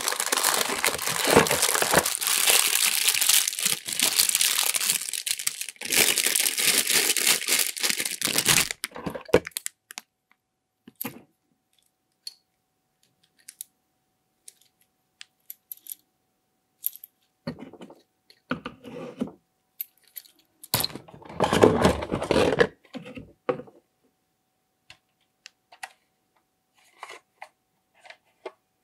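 Cardboard toy box being pulled open by hand, with loud, continuous tearing and scraping of cardboard for about the first nine seconds. After that come scattered clicks and rustles of plastic toy pieces being lifted out, and one more loud burst of rustling about twenty-one seconds in.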